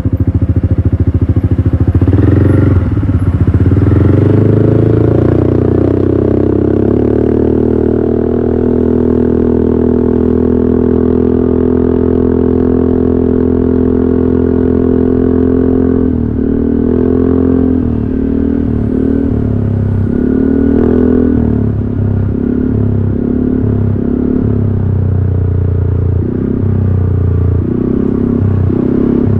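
Yamaha X-MAX 300 scooter's single-cylinder engine through a GP Racing aftermarket exhaust, heard from the rider's seat while riding. The engine revs up in the first few seconds, then holds a steady note while cruising. From about halfway on, it rises and falls again and again as the throttle is opened and closed.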